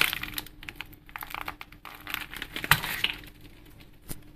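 Light clicks and rustling from handling a bowl of dry baking ingredients, with a sharper knock a bit past halfway and another near the end, over a faint steady hum.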